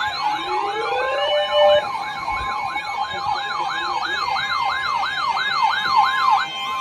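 Electronic alarm sirens sounding together, triggered by a new severe thunderstorm warning on the weather radio. One yelps up and down about twice a second, and another rises in pitch over the first two seconds and then holds. Under them runs a steady weather-radio alert tone.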